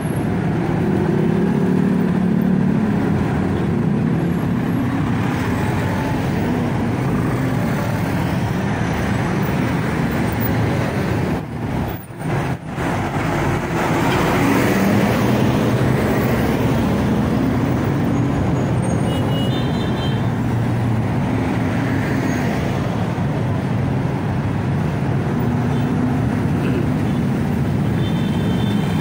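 Heavy street traffic: bus and other vehicle engines running and idling close by in a steady rumble, with a bus passing near about halfway through. The rumble dips briefly about twelve seconds in.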